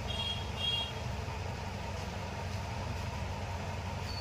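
Steady low mechanical hum, like a running engine or motor, with two short high-pitched chirps in the first second.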